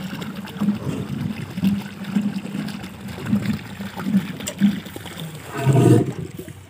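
Water running from a paddy-field irrigation pump, in uneven surges about twice a second over a low hum. A brief loud voice comes near the end.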